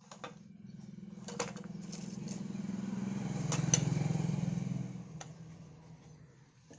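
A vehicle engine passing by, its low hum swelling to a peak near the middle and fading away. Light clicks and rustles from stiff cards and plastic-wrapped stands being handled sound over it.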